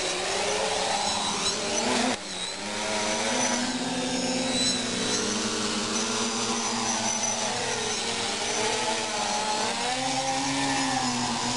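Electric motors and propellers of a radio-controlled multirotor drone in flight, a steady buzzing whine whose pitch rises and falls with throttle changes, with a brief dip in level about two seconds in.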